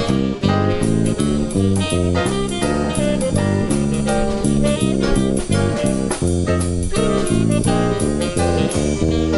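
Small live jazz combo playing a swing standard: guitar and drum kit with saxophone, at a steady, loud level.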